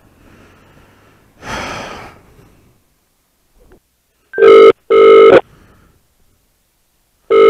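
Mobile phone ringing with an old-style telephone double ring: two loud rings a split second apart about four and a half seconds in, with the next pair starting near the end. A short burst of noise comes about a second and a half in.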